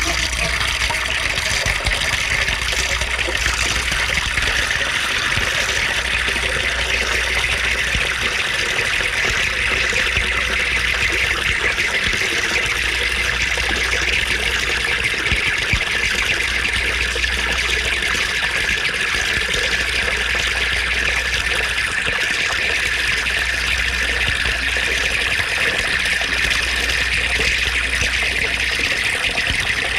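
Sleigh bells shaken continuously, a steady dense jingle with no breaks.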